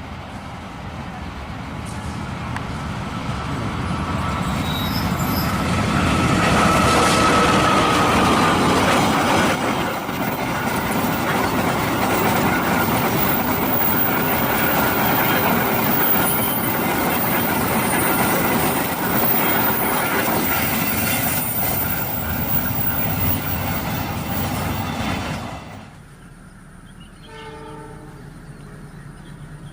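A CC206 diesel-electric locomotive and its train passing close by: locomotive engine and wheels on the rails build up to a peak about seven seconds in and stay loud for nearly twenty seconds, with the horn sounding around the peak. About 26 seconds in the sound cuts to a much quieter engine.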